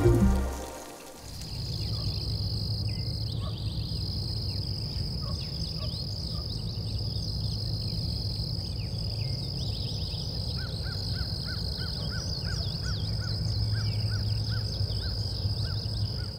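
Outdoor dusk ambience over a grassy field: insects droning steadily on one high pitch with brief breaks, birds chirping, and a steady low rumble underneath. From about ten seconds in, a short note repeats two or three times a second. Background music fades out in the first second.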